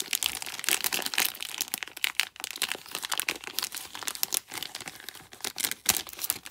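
Plastic bag and card sleeves crinkling in a steady run of small irregular crackles as a stack of sleeved trading cards is handled and slid out of the bag.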